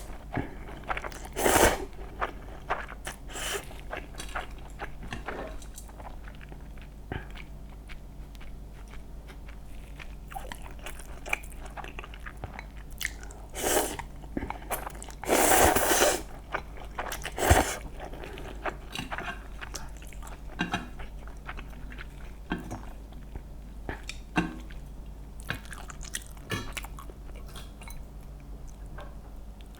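Close-miked eating: several loud, crackling crunchy bites, the biggest about halfway through, with steady chewing and small mouth clicks between them.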